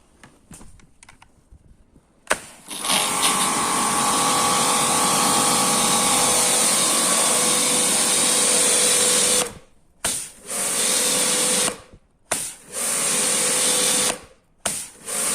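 Kärcher K5.20 pressure washer running after a click about two seconds in: motor and pump with a hissing water jet, loud and steady for about seven seconds. It then cuts off and restarts in several short runs that start and stop abruptly. With its new capacitor the motor starts and runs properly instead of only humming.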